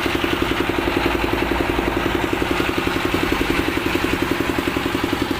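An engine idling steadily, with an even rapid pulse of about ten beats a second.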